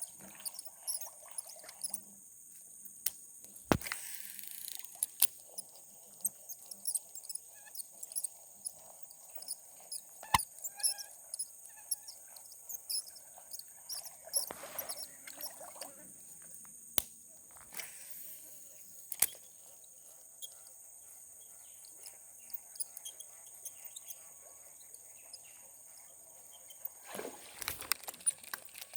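Steady high-pitched chorus of crickets and other insects trilling without a break. Scattered sharp clicks and knocks sound over it, a few of them clearly louder than the chorus.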